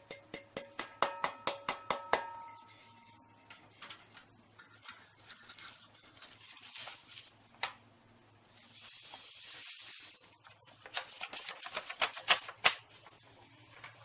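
Quick taps on a metal pan, which rings with a few clear tones for about two seconds, then scattered clicks, a soft rustle about nine seconds in, and another fast run of clicks near the end.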